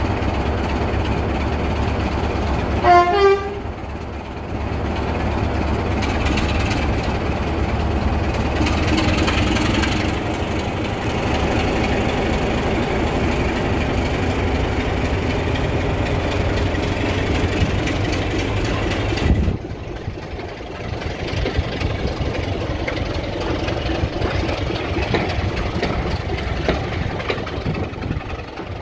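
BR Class 26 diesel locomotive's Sulzer six-cylinder engine working hard as it pulls a train of coaches away, with a short horn blast about three seconds in. The engine sound drops suddenly about two-thirds of the way through, leaving the coaches rumbling along the track.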